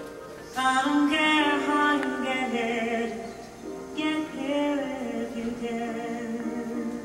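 Recorded song with a singing voice, played back to the room.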